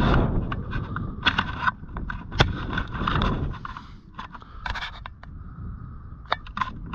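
Wind buffeting the microphone in a low rumble, overlaid by many short scrapes and clicks close to the microphone; it eases off after about four seconds.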